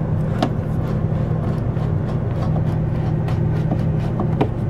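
A steady low mechanical hum, like an engine running nearby, with a few light clicks and knocks from the toilet's flush mechanism being handled.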